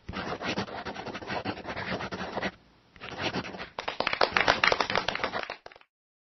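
Marker scratching as it draws lines, in two long runs of quick strokes with a short pause about halfway through. It stops shortly before the end.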